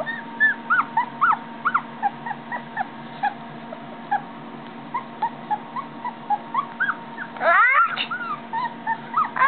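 Young puppy whimpering in a string of short, high squeaks, several a second, with a longer, louder rising whine about seven and a half seconds in.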